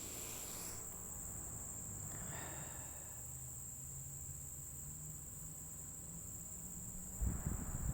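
Steady high-pitched chorus of insects such as crickets, one unbroken tone over a low rumble. A few low thumps come near the end.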